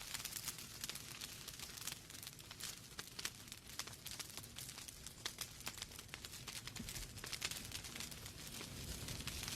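Log fire in a fireplace crackling: a dense, irregular run of small pops and snaps over a low, steady rumble of the flames.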